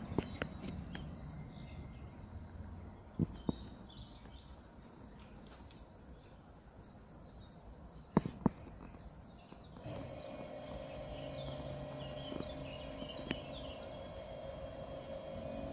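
Songbirds chirping, with two pairs of sharp clicks in the first half. About ten seconds in, the electronic gong loudspeakers of a Pintsch R-BÜT level crossing start sounding a steady, pulsing warning tone, the signal that the half-barriers are being lowered.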